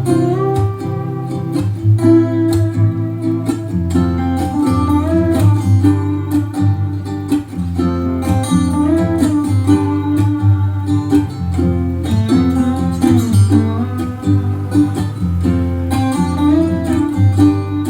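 Music led by plucked guitar over a steady bass, played back through Edifier 1280 powered speakers fed by an FX Audio Tube 03 tube preamp.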